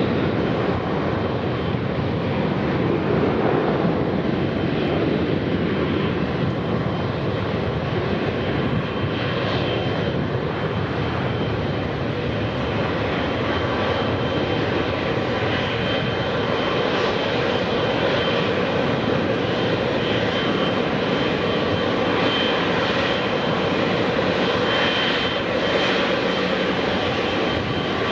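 Jet airliner engines running at low power while airliners move on the ground: a steady rushing engine sound with a faint high whine in the second half.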